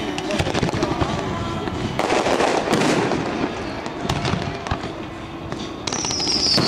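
Fireworks going off: a steady run of crackles and pops, with a louder crackling burst about two seconds in. Near the end a high, loud whistle starts and falls slightly in pitch.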